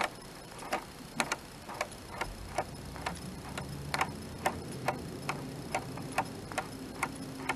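Ratcheting drive gear on a self-propelled lawnmower's transaxle clicking steadily as it is turned by hand, about two clicks a second: the ratchet pawl catching, a sign that the freshly cleaned springs and keys are working.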